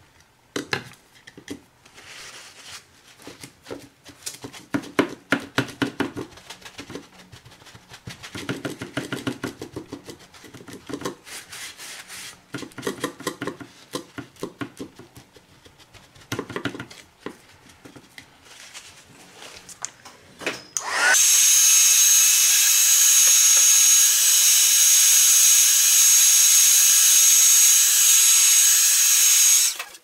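Small scraping, rubbing and tapping sounds of ink being worked on a painted cardboard piece by hand. About twenty seconds in, a heat tool switches on and blows loudly and steadily with a high whine, drying the freshly applied turquoise ink.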